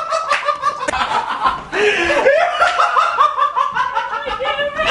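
High-pitched laughter: quick runs of short laughs several times a second, broken briefly just before two seconds in.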